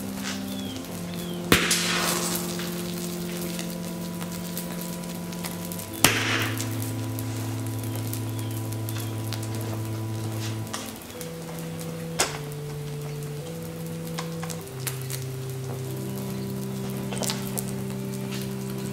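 Burning plastic toy sizzling and crackling in open flame, with sharp pops about 1.5, 6 and 12 seconds in, the first two followed by a brief hiss. Background music of slow held chords plays throughout.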